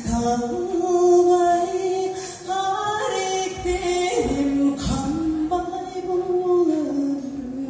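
A singer's voice amplified through a microphone and the hall's loudspeakers, holding long notes that slide from one pitch to the next.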